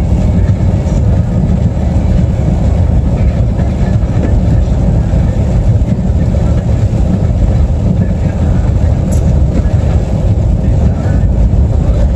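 Steady low rumble of a car driving on a wet road, heard from inside the cabin: engine and tyre noise with no breaks.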